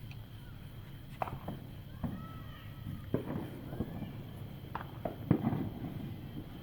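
Fireworks going off in the distance: about five separate bangs over a few seconds, each with a short low rumble after it, the loudest just past the middle.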